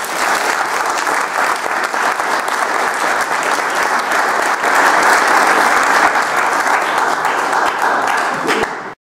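An audience applauding, a dense steady patter of many hands clapping that stops abruptly near the end.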